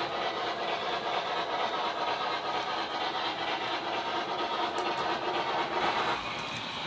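O scale model freight cars and a caboose rolling past on metal track: a steady rumble of wheels on the rails. It drops a little near the end as the train moves away.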